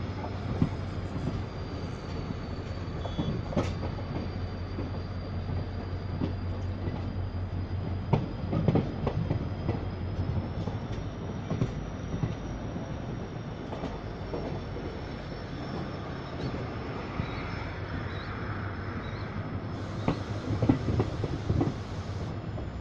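Diesel-hauled express train running along the track, heard from inside a passenger coach: a steady low drone with irregular clicks and knocks from the wheels over the rails, heavier around 8 to 9 seconds in and near the end.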